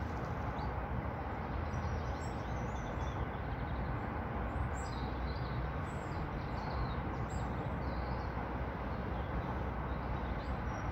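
Steady outdoor background rumble, with small birds chirping in short, high calls scattered throughout.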